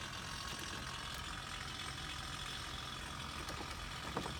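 A single click of a dashboard heater/AC control button being pressed near the end, over a steady background hum. The blower fan does not come on: the control responds but the fan itself does not.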